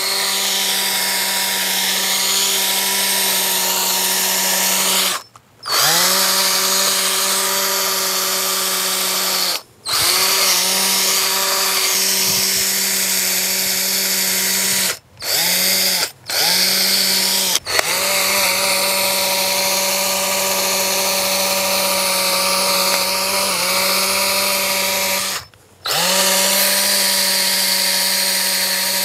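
Electric drill spinning a 500-grit sanding disc on a backing pad, wet-sanding the plastic headlight lens to cut away its yellowed, oxidised surface. The drill runs steadily with a loud whine and a rough hiss. About six times it stops briefly and spins back up.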